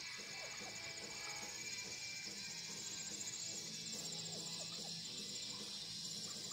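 Insects trilling steadily in a fast, even pulse, high-pitched, over faint music.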